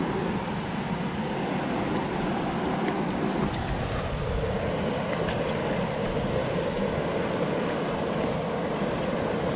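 Steady rush of water pouring over a concrete spillway and running past, with wind buffeting the microphone.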